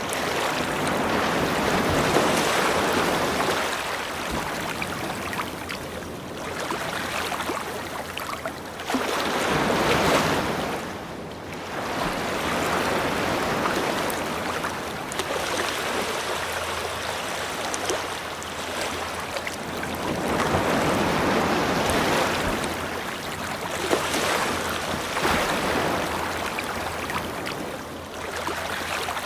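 Ocean waves breaking and washing up a beach, in slow surges that swell and fall back every several seconds, the biggest about ten seconds in.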